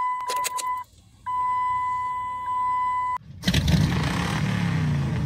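A steady electronic beep tone, first for about a second and then, after a short gap, for about two seconds; then a loud car engine sound comes in and runs on.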